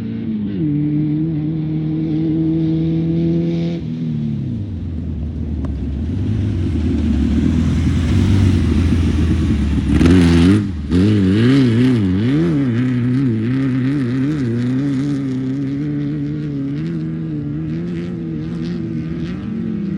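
Off-road race vehicle engine running hard. Its pitch drops twice in the first few seconds, and after a brief break a little past halfway it rises and falls quickly over and over.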